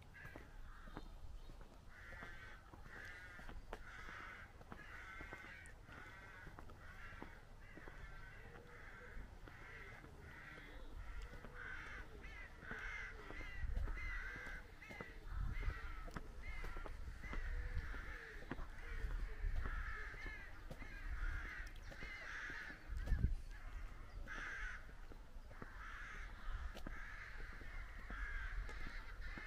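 Rooks cawing from a rookery: many harsh calls repeat and overlap without a break. Underneath runs a low rumble, with a brief low thump about two-thirds of the way through.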